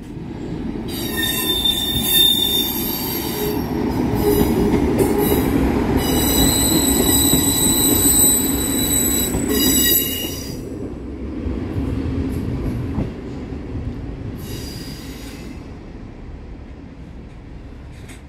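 Passenger train running over a level crossing, its wheels squealing in several high, steady tones for about nine seconds over a low rumble. The squeal stops about ten seconds in, and the rumble then fades as the train moves away.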